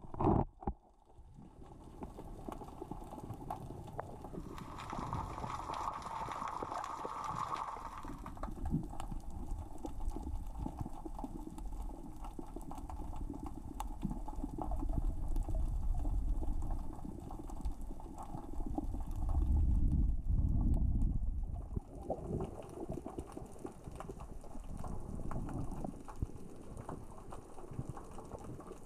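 Underwater sound of small rocks rolling and clicking across the sea floor as the current and tide move them: a dense crackle of fine clicks over a low rumble that swells twice in the second half. Heard through a waterproof action-camera housing.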